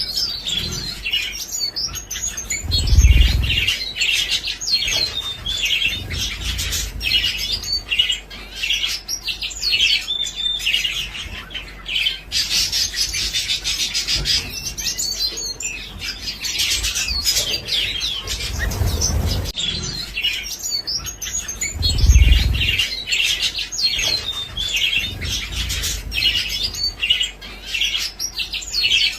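A group of zebra finches calling continuously: many short chirps crowding over one another. There are a few low bumps, about three seconds in and twice in the second half.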